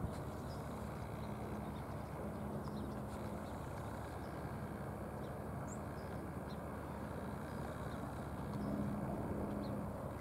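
Steady outdoor background rumble with a faint droning hum that drops out about three and a half seconds in and comes back near the end, and a few faint high chirps.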